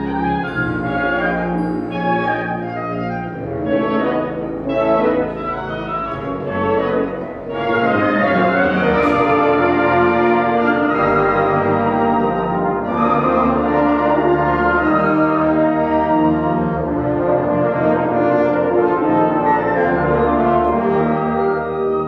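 A wind symphony playing concert music, with the brass prominent. The full ensemble swells louder about eight seconds in and holds a loud, sustained passage.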